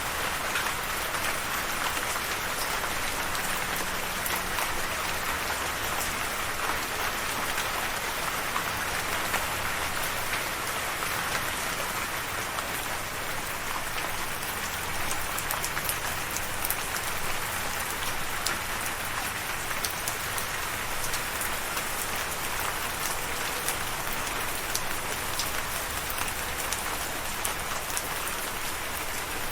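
Steady rain falling, a dense even hiss with many small drop ticks on surfaces.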